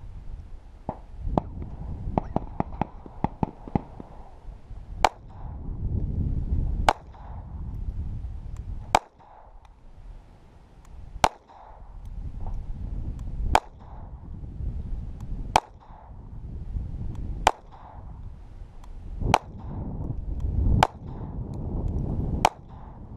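Walther P22 .22LR pistol firing Federal Champion rounds: ten single shots, one about every two seconds, with no stoppage between them. Before the first shot there is a quick run of lighter clicks, and a low rumble sits between the shots.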